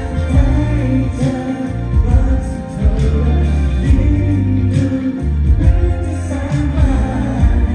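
Pop song with singing and a heavy bass beat, played loud through a concert hall's sound system.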